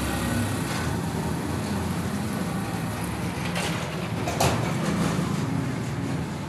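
A small engine running steadily, with one sharp knock about four and a half seconds in.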